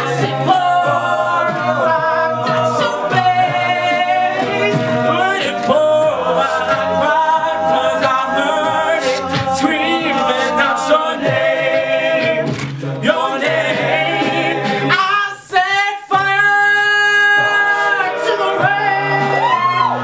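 Men's a cappella group singing: a male soloist carries the melody over sustained chords from the backing voices, with vocal percussion clicking out the beat. The sound drops out briefly about fifteen seconds in, then the full texture comes back.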